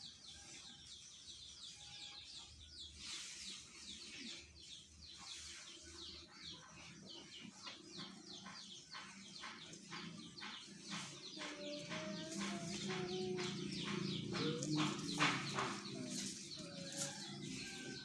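Brahman calf munching dry straw at a concrete trough: a long run of quick, regular crunches. Birds chirp and chickens cluck in the background, and a low hum swells in the second half.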